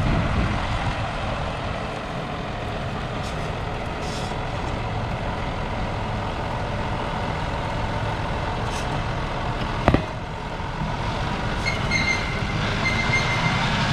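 John Deere 6155R tractor's 6.8-litre six-cylinder diesel engine running steadily with a low rumble. A single sharp click comes about ten seconds in, and a faint high-pitched tone comes and goes near the end.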